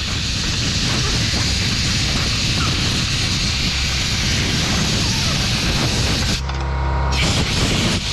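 Compressed air blowing through a dirt-packed electrical connector from an air blow gun, a steady loud hiss that stops briefly near the end and starts again.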